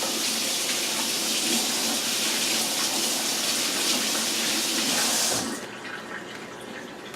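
Water running from a tap into a sink, shut off about five and a half seconds in.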